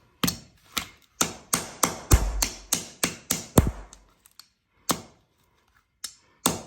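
Light metal-on-metal tapping on a spiral bolt extractor socket stuck on a rounded-off oil drain plug, knocking the socket loose. There are sharp taps about three a second for roughly four seconds, then two single taps spaced apart near the end.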